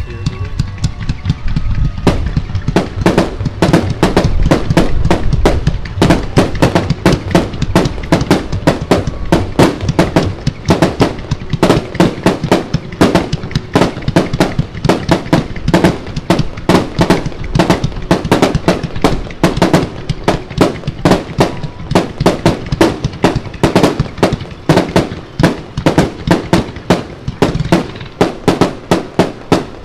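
Aerial fireworks going off in a rapid, continuous barrage of launches and bursts, several bangs a second, thickening about two seconds in.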